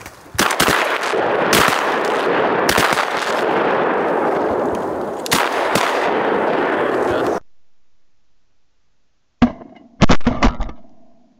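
Shotgun shots of a duck hunt: about five loud shots in the first five and a half seconds over a steady rushing noise, which cuts off suddenly. After a quiet gap of about two seconds, a short cluster of sharp cracks follows near the end.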